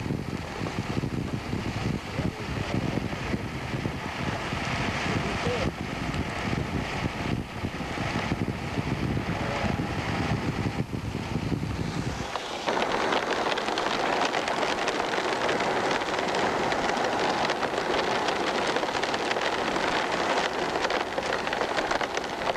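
A low, rough rumble of wind buffeting the microphone. About halfway through it cuts abruptly to a steady, crackling hiss of heavy rain.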